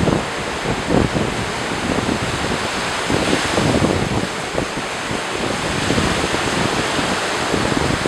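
Small ocean waves breaking and washing up the sand around the pier pilings, a steady surf wash that swells briefly a few seconds in. Wind gusts rumble on the microphone throughout.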